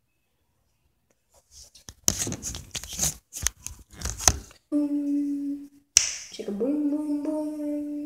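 A burst of sharp clicks and crackles, then a voice holding long steady notes: one short note, then another that slides up and stays level.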